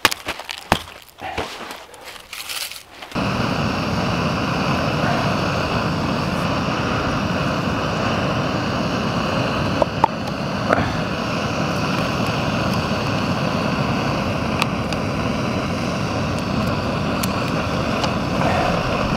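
For the first three seconds, a hiking boot scuffs and crunches on gravel. Then a backpacking gas stove's burner runs with a steady roar under a pot of water, with a few small handling clicks partway through.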